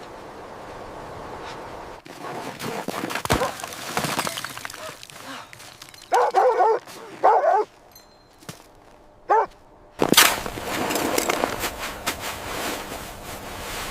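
A dog giving three short calls, about six, seven and nine seconds in, the first the longest and the last very brief, over rustling and footstep noise.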